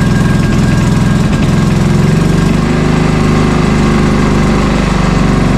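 John Deere 240 lawn tractor's engine running steadily at idle just after a cold start, warming up with the snowblower not yet engaged.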